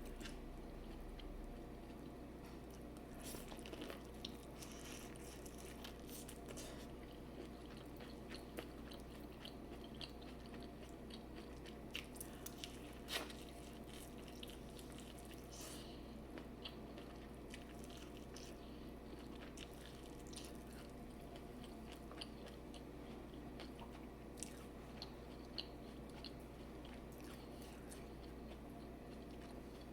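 A person eating seafood boil close to the microphone: quiet chewing and biting with scattered small crunches and clicks, over a steady low hum.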